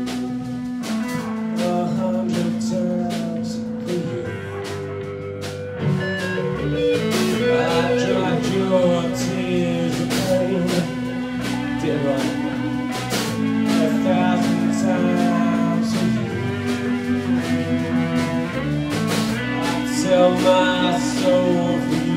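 Live band playing: a man singing into a microphone over electric guitars and a drum kit.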